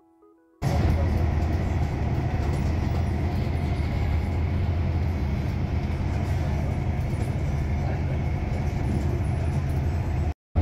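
Light rail train running at speed, heard from inside the passenger car: a steady low rumble with wheel and track noise. It comes in suddenly about half a second in and drops out for a moment near the end.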